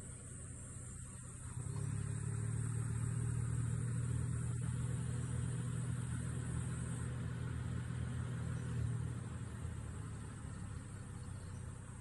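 A motor vehicle's engine running with a steady low hum, coming up about two seconds in and easing off after about nine seconds.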